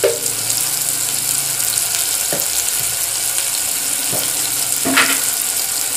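Garlic, shallots and tomato frying in sesame oil in a stainless steel pot: a steady sizzling hiss. A few short ticks sound over it, the loudest about five seconds in.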